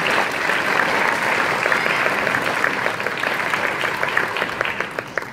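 Audience applauding, thinning into a few scattered claps and dying away near the end.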